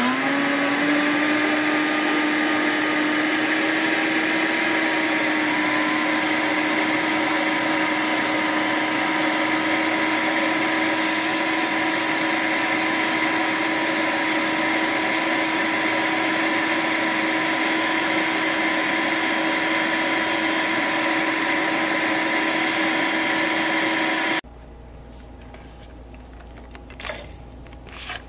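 Instant Pot-brand countertop blender grinding black sesame seeds into powder. The motor settles into a loud, steady whine just after the start, then cuts off suddenly about 24 seconds in. A few faint knocks follow near the end.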